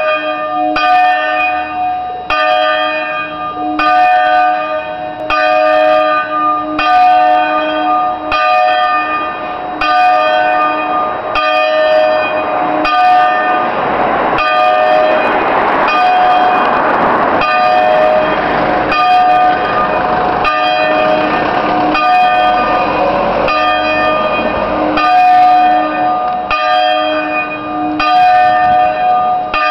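Peal of three swinging church bells tuned in C4, ringing the signal for weekday mass: strikes in a steady repeating pattern, about one every three-quarters of a second, each leaving a ringing tone. About halfway through, a rushing noise swells under the bells for several seconds and fades.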